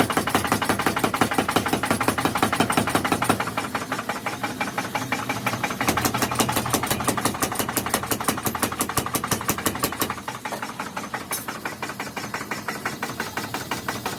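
Rapid, steady hammering in a forge, several blows a second, typical of a mechanical power hammer forging hot metal. The blows turn sharper and more even about six seconds in and soften about ten seconds in.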